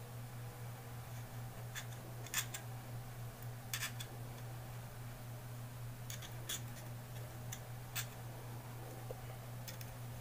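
A handful of short, sharp clicks and snips from hand work on a Zippo lighter's insert, wick and cotton packing, over a steady low hum.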